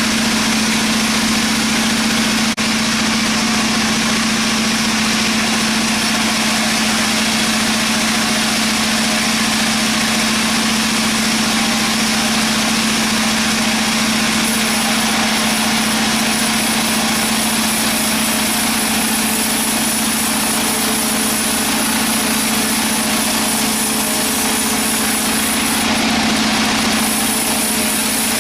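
Sawmill machinery running steadily with a constant low hum, and a single short click about two and a half seconds in.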